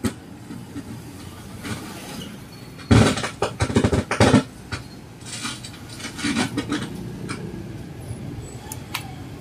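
Konzert AV-302 stereo mixing amplifier crackling and popping irregularly through its speaker, like watusi firecrackers going off, with a dense run of loud pops about three seconds in. It is a fault in the amplifier: the crackle stays with the input disconnected, which the technician takes to place it in the main amplifier section.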